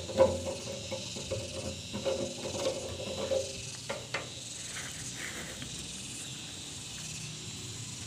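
Outdoor background with a steady, high-pitched insect chirring. Over the first three or four seconds there is also a lower hum with light clicks, and a couple of sharp ticks come about four seconds in.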